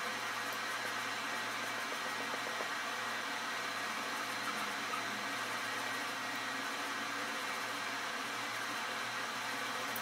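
Steady hiss with a faint low hum: the background noise of a small room. No distinct strokes stand out from it.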